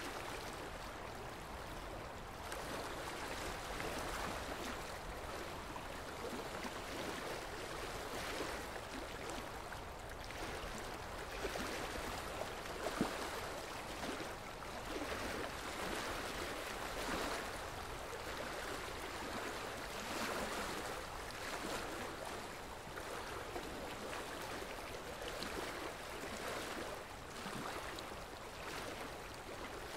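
A steady rushing noise like running water, swelling and easing every couple of seconds.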